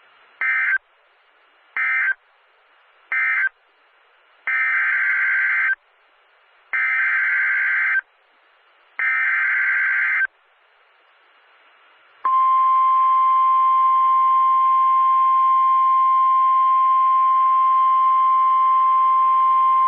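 NOAA Weather Radio emergency alert tones. Three short SAME end-of-message data bursts close out one warning, then three longer SAME header data bursts open the next. About 12 seconds in, the steady 1050 Hz warning alarm tone begins and holds.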